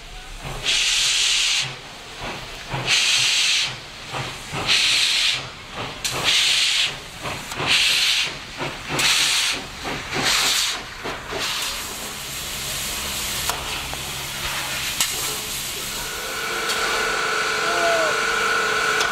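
Steam locomotive of ČSD class 423.0 starting away: about eight sharp exhaust chuffs coming quicker and quicker, which then merge into a steady hiss of steam. Near the end a steady whistling tone joins the hiss.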